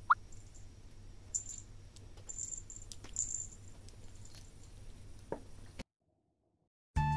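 Quiet room with a few faint, high tinkles from small cat collar bells and a soft click. It drops to dead silence for about a second, then background music starts near the end.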